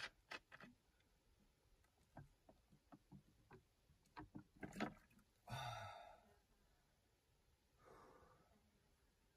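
Plastic water bottle handled, with sharp clicks and crinkles as it is opened, then swallowing clicks while drinking and a breathy sigh after drinking, with a softer breath near the end.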